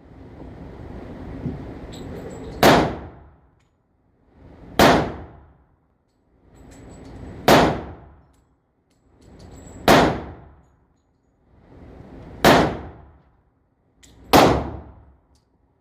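Six .44 calibre handgun shots firing buckshot loads, each a sharp loud crack with a short ringing tail, about two to two and a half seconds apart.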